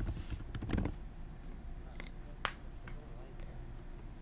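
Computer keyboard keystrokes while editing code: a quick run of key presses in the first second, then a few separate clicks, the sharpest about two and a half seconds in.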